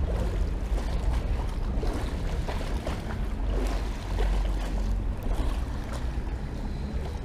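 Wind rumbling on the microphone over water lapping against a small boat's hull, with scattered faint clicks.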